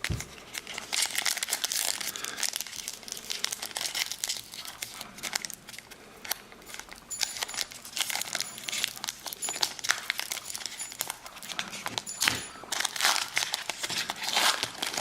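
Foil wrapper of a baseball card pack crinkling and tearing as it is opened and handled, a dense run of crackles and rips.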